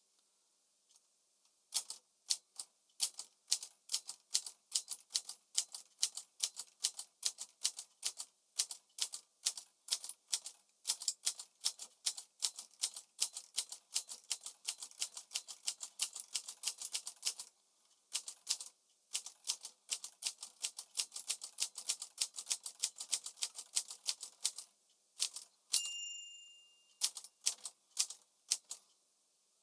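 Smith-Corona Calypso manual portable typewriter being typed on: a fast, steady run of key strikes for about twenty seconds with one short pause. Near the end a bell rings once, and a few more keystrokes follow.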